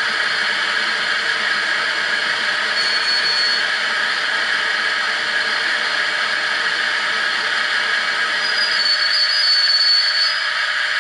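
Model-railway sound decoder in a Hornby OO Class 71, playing the electric locomotive's standing sounds through the model's small speaker: a steady whirring hiss. A faint high tone comes in briefly about three seconds in and again near the end, and the deeper part of the sound drops away about nine seconds in.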